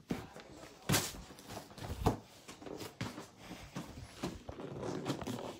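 Rustling handling noise with scattered knocks, the two loudest about one and two seconds in.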